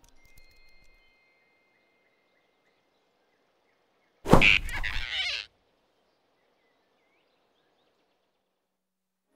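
A cartoon swish-and-grab sound effect: one sudden loud swoosh about four seconds in, lasting about a second, as a large rabbit snatches a squirrel off a branch.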